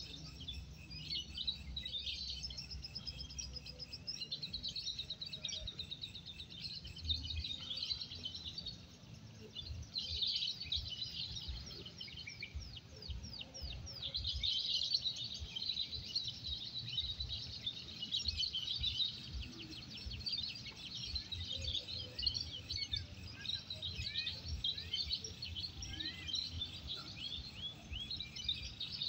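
Many caged lovebirds singing at once in a contest: a dense, continuous chorus of rapid, high chattering trills.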